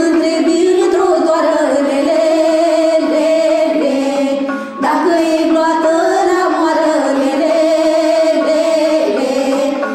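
A group of girls and women singing a Romanian folk song together in sustained melodic phrases, with a brief break between phrases about five seconds in.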